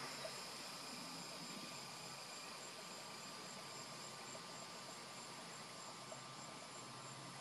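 Faint, steady insect chorus: high, continuous trilling with no breaks.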